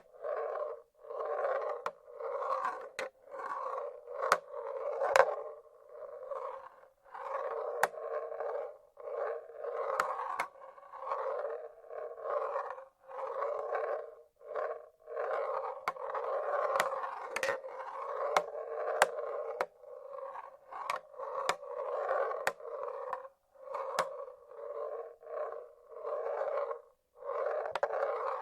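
Wooden marble-run machine: marbles rolling along wooden tracks in repeated runs of about a second each with short gaps between, and sharp clicks as marbles drop and knock against the wood.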